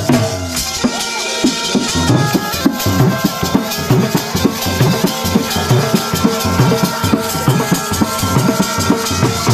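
Wedding dhol drums and band music playing: drums beat a quick, steady rhythm under a held melody.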